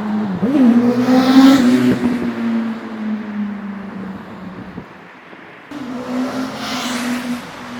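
A 2007 Yamaha R1's inline-four engine, heard as the motorcycle rides past twice in two clips, with a sudden cut between them a little under six seconds in. One pass is with a Graves Motorsport slip-on exhaust and the other with the stock exhaust. The first pass is the louder, peaking about a second and a half in.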